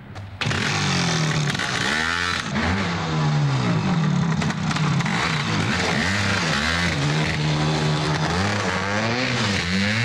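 Motorcycle engine revving hard, its pitch climbing and dropping again and again as the off-road bike is ridden fast. It starts abruptly just after the beginning.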